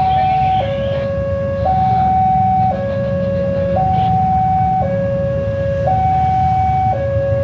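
Railway level-crossing warning alarm sounding a two-tone hi-lo signal, switching between a higher and a lower tone about once a second, warning of an approaching train. A steady low rumble runs beneath it.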